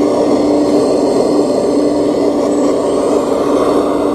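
Scale-model Liebherr R 970 SME RC hydraulic excavator's pump running with a steady hum as it works the boom and bucket.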